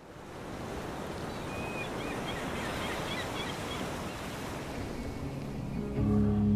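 A steady rushing noise, like ocean surf, fades in from silence, with a few faint high chirps in the middle. About five seconds in, music with plucked strings begins and grows louder.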